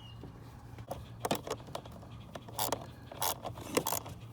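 Irregular metallic clicks, clinks and short scrapes of a socket wrench being fitted to and worked on the blower motor's small mounting bolts.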